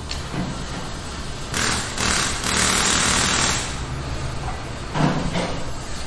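Car repair workshop sounds over a steady low background: a loud hissing rush for about two seconds, then a short thud about five seconds in.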